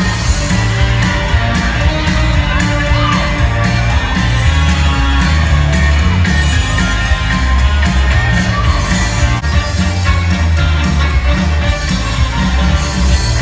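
Loud live music with singing over a heavy, steady beat.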